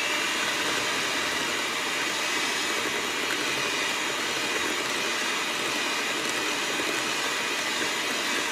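Electric hand mixer running steadily at speed, its beaters whirring through cream cheese filling in a glass bowl.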